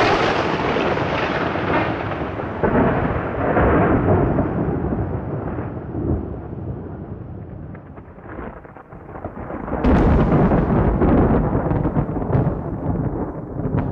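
Thunder: a sudden loud clap that rolls into a long rumble, then a second loud clap about ten seconds in that rumbles on.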